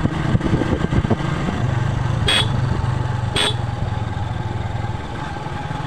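Motorcycle engine running steadily while riding. Two brief high chirps come about a second apart midway.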